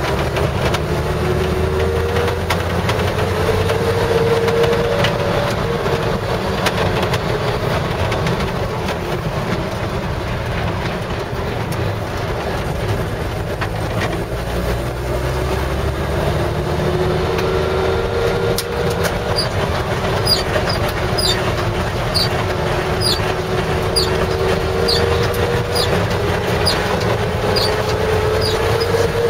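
1955 Chevrolet 3100 half-ton pickup driving, heard from inside the cab: steady engine and road noise with a whine that rises in pitch several times as the truck gathers speed. A light regular ticking joins in over the last third.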